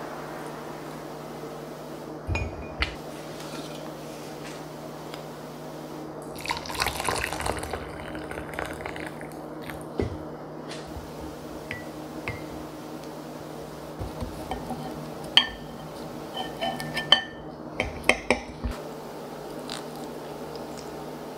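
Liquid poured from a pot into a ceramic mug for about three seconds, with scattered clinks and taps of a jar, lid, mug and utensils before and after. A steady low hum runs underneath.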